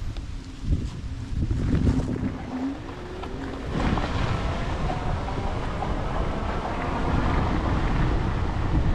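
Wind buffeting the microphone and fat tyres of a Himiway Zebra e-bike rolling over a gravel road. The noise grows louder and steadier about four seconds in as the bike gets up to riding speed.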